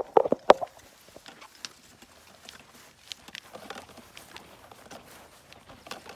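Footsteps walking across mown grass, an irregular soft patter, with a few sharp handling knocks on the camera in the first half second.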